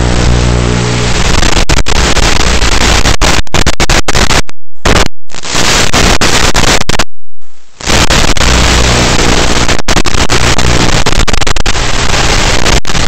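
Model plane's propeller motor tone that fades about a second in under a loud, harsh static hiss, the sound of a weakening analog FPV link. The hiss cuts out completely twice in the middle, then runs on with the motor hum faintly beneath it.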